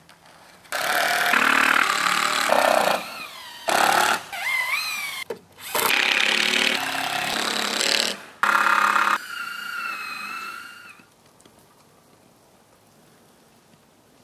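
Handheld power tool running in several bursts, its whine rising and falling in pitch, each burst starting and stopping abruptly. It stops about eleven seconds in.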